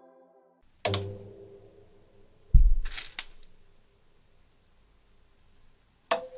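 Computer hardware clicking during startup: a sharp mechanical click with a low thump about a second in, a heavier thump followed by two quick clicks around the middle, and one more click near the end, over a faint hiss.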